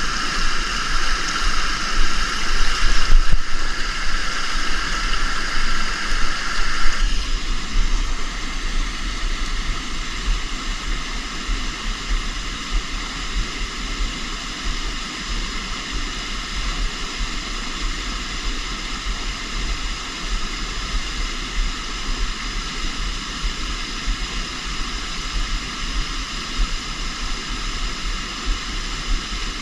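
Steady rush of flowing river water, with a strong low rumble. The higher part of the rush drops back a few seconds in.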